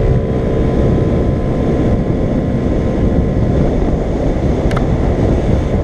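Heavy wind rumble on the microphone over the running of a Cabo 50 moped being ridden, a steady noise with no clear engine note. A single sharp click near the end.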